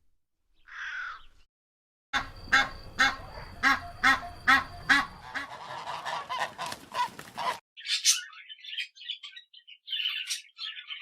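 Goose honking over and over, about two loud honks a second for some five seconds, ending abruptly. A single short bird call comes before it, and after it a different bird gives a run of high, chattering squawks.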